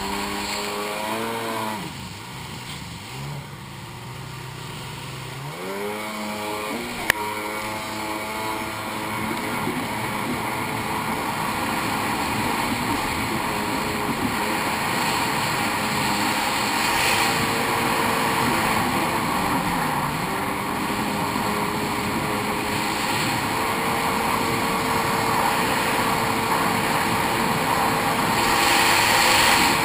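Sea-Doo 800 jet ski's two-stroke engine heard from on board. The revs drop about two seconds in, climb again between six and eight seconds, then hold high at speed under the rush of water spray and wind. A single sharp knock comes about seven seconds in.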